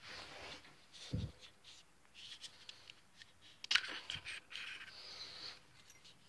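Faint handling sounds as small objects are picked up and moved about, with a low knock about a second in and a sharp click near the middle.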